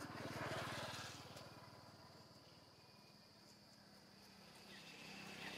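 Faint hum of a passing engine that swells about half a second in, fades, then rises again near the end, over a thin steady high insect whine.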